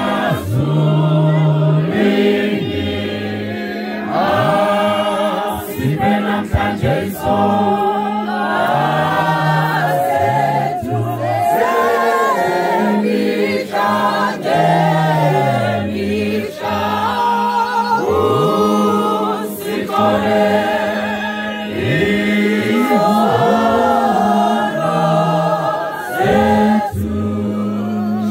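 A church choir of men and women singing a hymn unaccompanied in harmony, with long held low bass notes under the melody.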